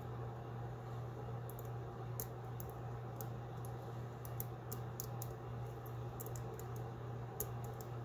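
Faint, irregular small metallic ticks and scrapes of a hook pick working the pins of a pin-tumbler lock cylinder held under a tension wrench, over a steady low hum.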